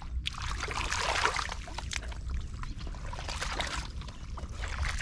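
Hands splashing and sloshing in shallow muddy water while groping for fish, in irregular bursts.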